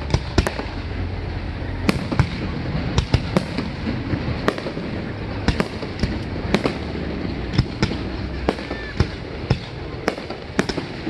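Aerial fireworks shells bursting in a string of sharp bangs, about two a second at irregular intervals, over a steady background rumble.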